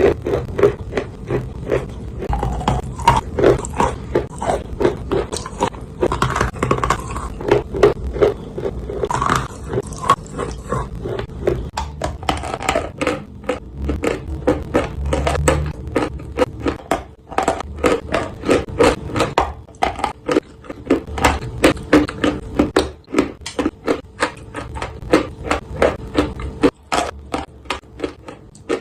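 Dry clay being bitten and chewed close to the microphone: a continuous run of sharp, crisp crunches, a few a second.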